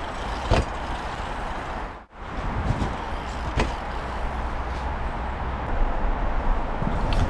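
Haro Race Lite Pro 24-inch BMX cruiser ridden on dirt trails: a steady rush of wind on the action-camera microphone and tyre noise, with a few sharp knocks from the bike over bumps. The sound drops out briefly about two seconds in.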